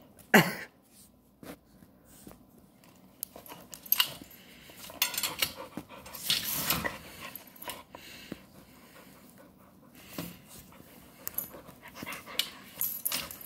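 Husky puppy panting and snuffling at a baby gate, with scattered clicks of her teeth and paws against the gate. Right at the start she gives one short, loud cry that falls in pitch.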